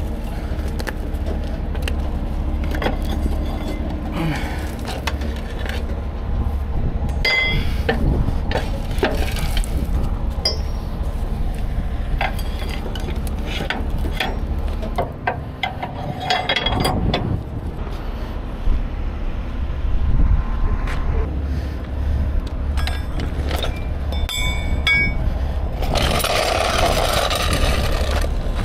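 A heavy diesel engine runs steadily underneath, while steel rigging gear (shackles, a snatch block and winch wire rope) clanks and clinks as it is handled. Near the end comes a rushing noise lasting a couple of seconds.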